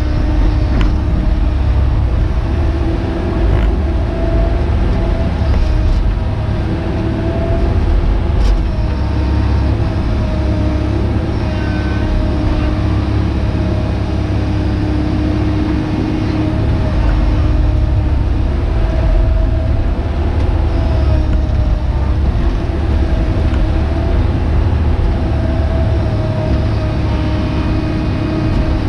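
Hitachi Zaxis 130 excavator heard from inside its cab while digging: the diesel engine runs steadily under load, with a hydraulic whine that rises and falls as the boom and bucket are worked.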